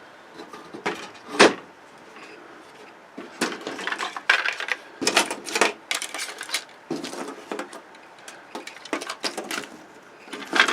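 Irregular clicks, knocks and clatter of hard parts being handled and set down while a flat-screen television is taken apart. A single knock comes early, and busier runs of clatter follow in the middle and later on.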